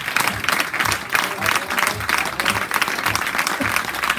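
Applause from a small crowd: many hands clapping steadily.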